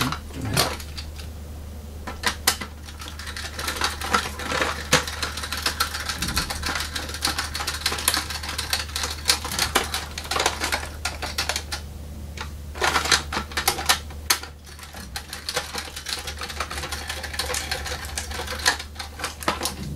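Small screwdriver unscrewing the screws that hold a diecast toy car to its box base: a long run of small clicks and scrapes, with the cardboard box being handled.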